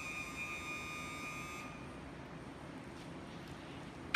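DC-powered hydraulic pump of a roll manipulator running with a steady high whine that stops about one and a half seconds in. A sharp metallic clunk with a short ring comes near the end.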